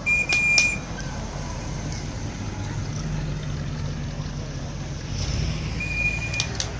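1959 Cadillac's V8 engine running as the car rolls slowly past, a low rumble that grows louder about two and a half seconds in. A short high whistle-like tone sounds at the start and again near the end, with a few sharp clicks.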